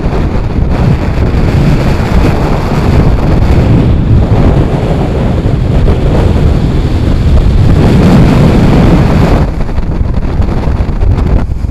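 Strong wind buffeting the microphone, mixed with the rush of choppy sea and the ferry's bow wave breaking against the hull. The wind eases slightly near the end.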